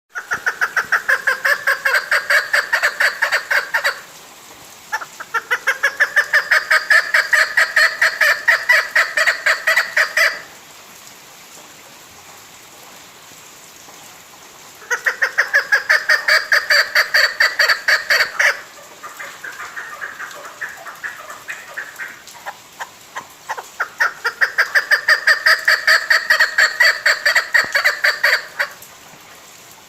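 Female chukar partridge calling: four bouts of rapid, repeated clucking notes, each lasting several seconds, separated by short pauses, with a softer run of notes before the last bout.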